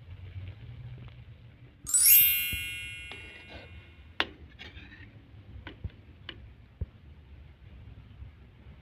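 A single loud, ringing clink of kitchenware about two seconds in, dying away over a second or so. It is followed by several light clicks and knocks of utensils or cookware.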